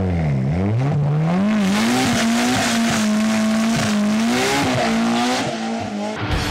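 Drift car's engine revving hard and held high, its pitch dipping briefly then climbing, with tyres squealing and skidding through the slide. The engine note breaks off shortly before the end.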